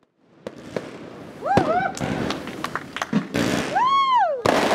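Fireworks going off in a rapid series of bangs and crackling bursts. Two short rising-and-falling cries come about a second and a half in, and a longer one near the end.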